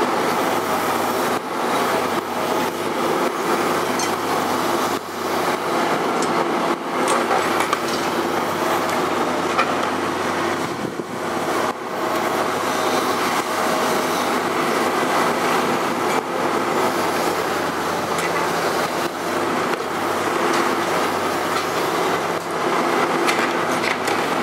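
Liebherr 954 demolition excavator running under load, its diesel engine and hydraulics holding a steady drone that shifts pitch as the arm works. Its grapple tears at the building's steel and debris, with repeated clanks, knocks and metal scraping.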